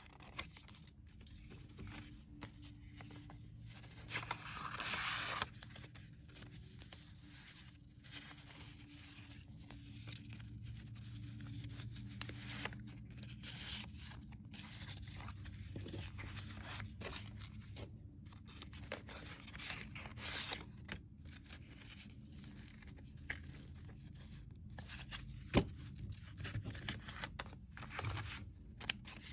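Paper and card stock rustling and sliding as envelopes, tags and cards are handled and lifted out of a paper gift box. There is a longer, louder rustle about four seconds in and a single sharp tap near the end.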